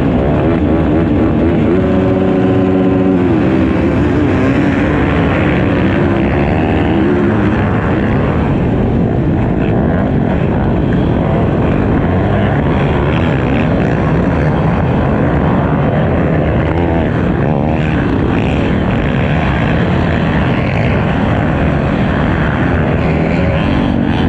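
A pack of motocross dirt bikes running hard from the start, engines at high revs, heard from a rider's own bike in the pack. About two seconds in, an engine note climbs clearly above the rest as the bikes launch, then the many engines run on together.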